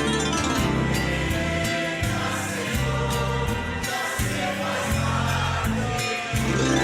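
Christian worship music on the harp, with plucked notes over sustained bass tones and voices singing along.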